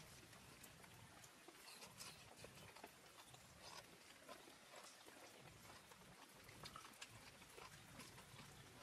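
Near silence, with faint scattered clicks and taps at irregular intervals.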